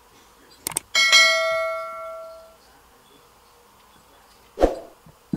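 Subscribe-button sound effect: two quick mouse clicks, then a bell ding that rings out for about a second and a half. About four and a half seconds in comes a single thump.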